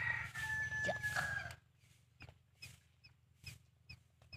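Newly hatched Muscovy ducklings peeping in short, high chirps, about two or three a second, from a bit before halfway on. Before that, for about the first second and a half, a louder rustle of the nest with a steady high note over it.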